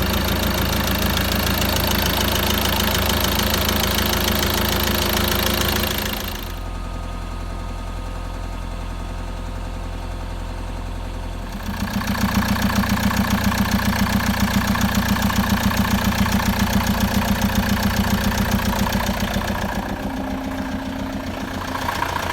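Peugeot Boxer 2.2 turbodiesel engine idling cold with a knock in the engine. It drops quieter about six seconds in, then comes back louder with a regular pulsing about halfway through.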